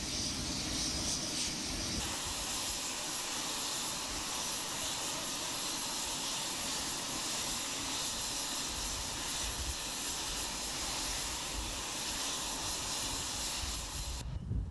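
Steady aircraft engine noise, a rushing hiss with a thin high whine, that cuts off suddenly near the end.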